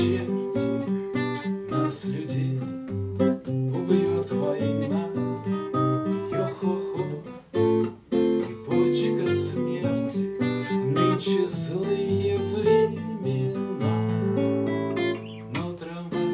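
Nylon-string classical guitar playing an instrumental interlude, single plucked notes mixed with strums.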